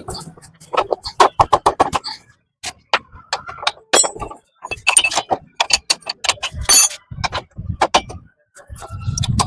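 Metal parts clinking and knocking as a motorcycle rear wheel and brake drum are worked back into place. There is a quick run of clicks about a second in, a few ringing metallic strikes, and dull thumps near the end.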